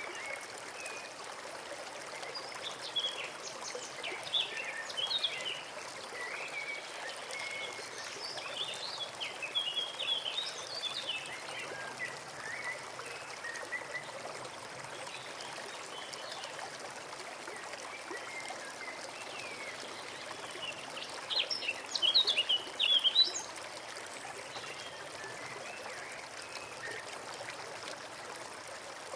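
Forest stream running steadily, with songbirds chirping over it: scattered quick calls through the first half and a louder flurry of rapid chirps about three-quarters of the way through.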